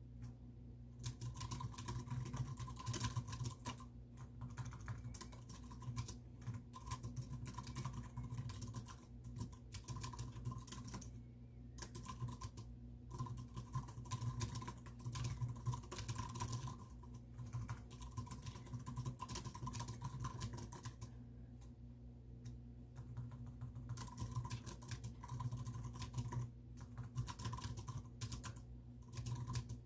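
Typing on a computer keyboard in quick runs of key clicks, broken by several short pauses, over a steady low hum.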